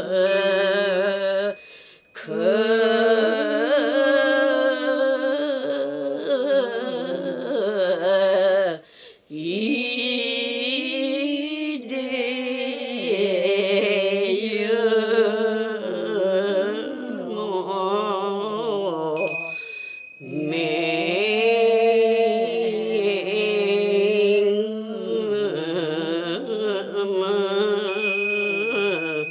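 Voices chanting a slow, melodic Buddhist hymn together, breaking off briefly twice between phrases. A small bell rings three times, near the start, about two-thirds of the way through and near the end.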